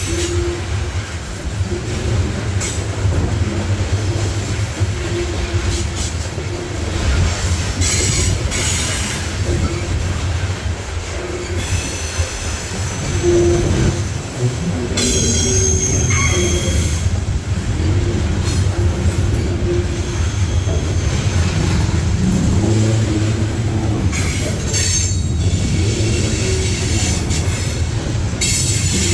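Norfolk Southern train rolling past with a steady low rumble of wheels on rail. Steel wheels squeal high and thin now and then, loudest about halfway through, over scattered clicks and knocks from the rail joints and cars.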